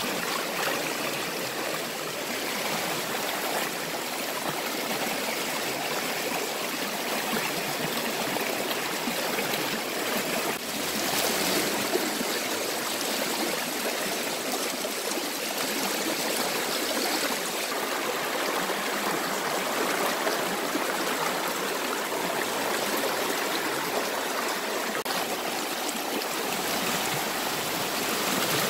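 A stream running steadily, a continuous even rush of water.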